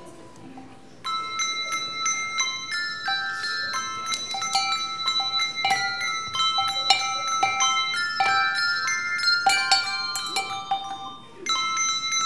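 Handbell choir playing a tune, many bells struck in quick succession and left ringing, beginning about a second in. The ringing drops away briefly near the end before the bells come in again.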